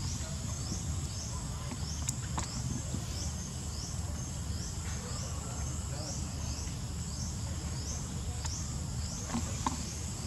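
A high, short, rising chirp repeating about every half second, over a steady low rumble.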